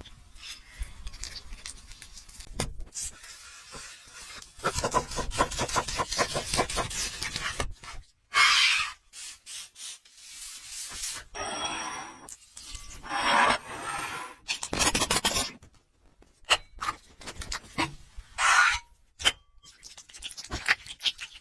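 Food-preparation handling sounds: irregular bursts of scraping and rubbing, with a run of quick strokes a few seconds in.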